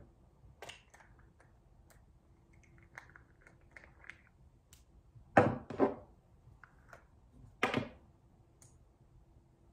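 Handling noises: scattered light clicks and taps of small objects, then two loud knocks in quick succession about five and a half seconds in and another knock near eight seconds.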